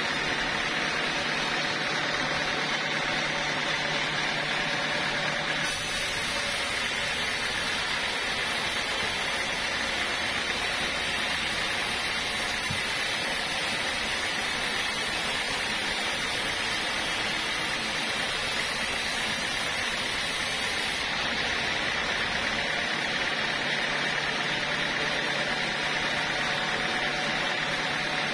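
Band sawmill blade sawing lengthwise through a teak log: a steady, loud sawing noise. Its tone changes about six seconds in and changes back about twenty-one seconds in.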